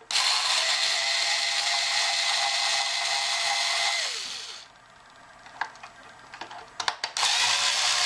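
Cordless drill-driver running steadily as it backs a screw out of a plastic clock case, winding down about four and a half seconds in. A few light clicks follow, and the driver starts up again about seven seconds in.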